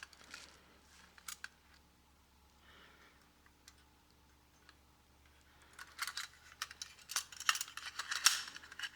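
Tin wind-up toy robots being handled, giving light metallic clicks and clatter: a few clicks at first, then a busy run of them over the last three seconds.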